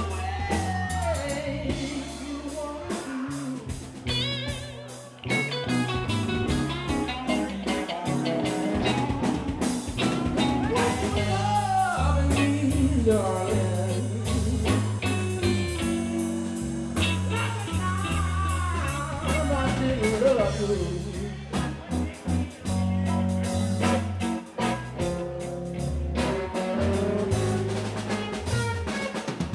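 Live blues band playing: a male lead vocal over electric guitars, bass guitar and a drum kit.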